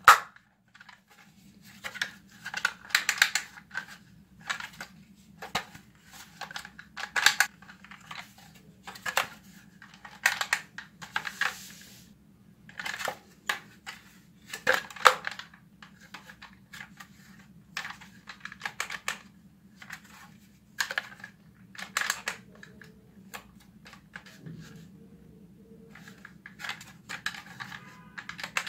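Plastic clicks, knocks and rattles from a plastic Nerf-style toy blaster being handled and turned over in the hand. The clicks come irregularly, in clusters a second or two apart, over a faint steady low hum.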